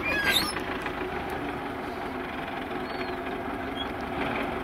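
Tractor engine running steadily as the tractor drives slowly along a muddy dirt track. Short bird chirps come twice in the second half.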